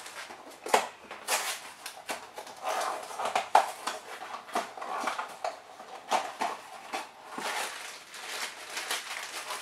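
Hands opening a small cardboard blind box and pulling out the foil bag inside: irregular cardboard taps, scrapes and foil crinkles.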